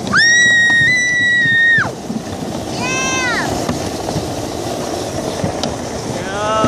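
Alpine slide sled rumbling steadily as it runs down the chute. Over it, a rider gives a long high-pitched scream for nearly two seconds, then a shorter whoop that rises and falls about three seconds in.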